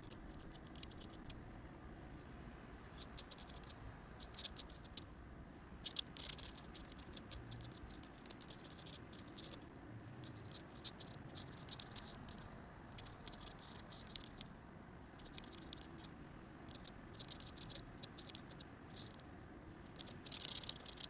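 Ink drawing pen scratching on paper in quick, short strokes, coming in clusters with pauses between them as the lines are sketched, over a faint steady room hum.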